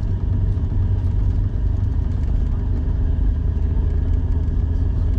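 Autozam AZ-1's mid-mounted turbocharged three-cylinder engine running at low revs, heard from inside the small cabin as a steady low drone while the car creeps along.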